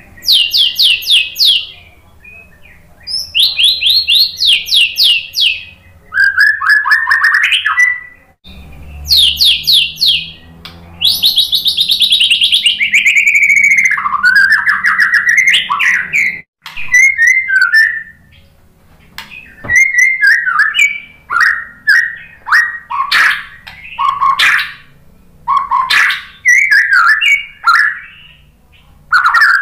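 A white-rumped shama singing loudly: bursts of fast, high trills, a long phrase sweeping down in pitch near the middle, then shorter chattering phrases repeated with brief pauses.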